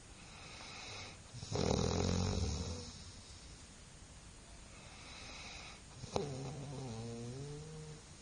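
A sleeping person snoring loudly: a hissing breath in, then a loud rattling snore about a second and a half in. Another breath in follows, then a sharp click and a long snore with a wavering pitch near the end.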